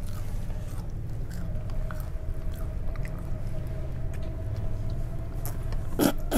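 Close-miked chewing of a crunchy fried dough stick, with small crackles over a steady low hum, and one louder sharp crunch about six seconds in.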